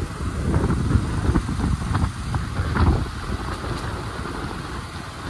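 Wind buffeting the microphone of a moving motorcycle, a gusty low rumble that eases a little after the middle.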